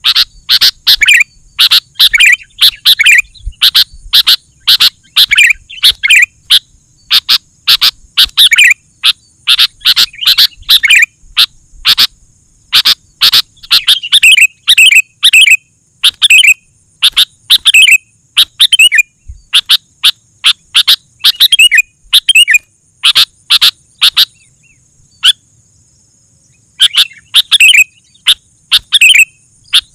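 Sooty-headed bulbul (kutilang) singing loudly and without letup, a rapid run of bubbly chirping phrases with a short break about 25 seconds in. A faint steady high hiss runs underneath.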